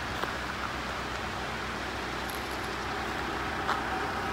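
Car driving, a steady low engine and road rumble with tyre noise.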